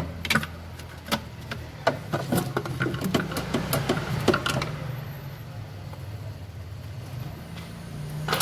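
A screwdriver working the cover of a car's air filter housing loose: a quick run of sharp clicks and rattles of metal and plastic, mostly in the first half, over a steady low hum.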